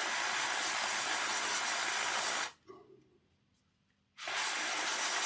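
Aerosol contact cleaner spraying in two bursts, a long hiss that stops about two and a half seconds in, then a second one near the end. It is blasting the thick waxy lubricant out of a model locomotive's worm gear.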